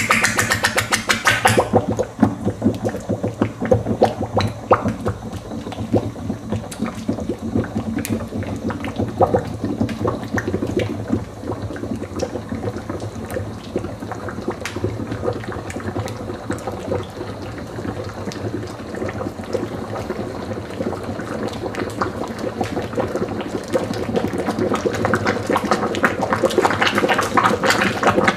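Red-hot metal ball sizzling in honey, a dense, irregular crackle of small pops and bubbling, busiest in the first couple of seconds and again near the end.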